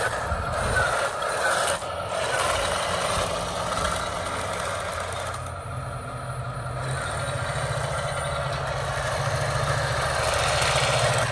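Electric RC conversion of a 1/12 diecast Dongfanghong 54 crawler tractor driving on concrete: its small electric drive motor and gearbox whine steadily while the link tracks clatter over the ground. The sound grows louder near the end as the tractor comes close.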